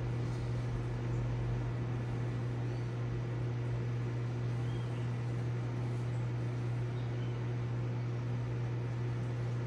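Reef aquarium pump running: a steady low hum with a faint even hiss.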